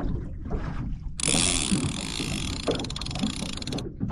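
A fishing reel's line-out clicker buzzing in a rapid run of clicks as a fish takes the bait and pulls line off. It starts about a second in and stops just before the end, over a low steady rumble.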